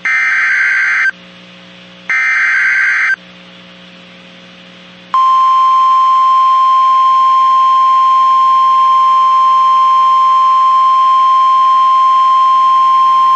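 NOAA Weather Radio alert: the last two of three SAME digital header bursts, harsh buzzy warbles about a second each, then the steady 1050 Hz warning alarm tone from about five seconds in. The tone signals the start of a warning broadcast, here a severe thunderstorm warning.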